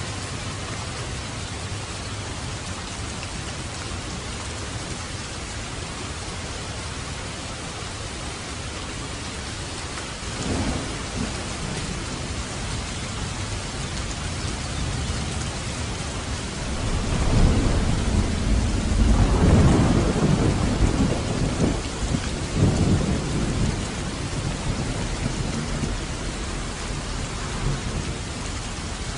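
Steady rain with thunder: a short low rumble about ten seconds in, then a longer, louder roll of thunder past the middle that fades out over several seconds.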